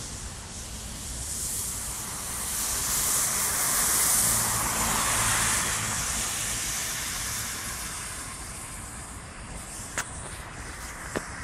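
Tyres hissing on a wet road as a vehicle passes, swelling over a few seconds and then fading, over a steady low rumble. A couple of sharp clicks near the end.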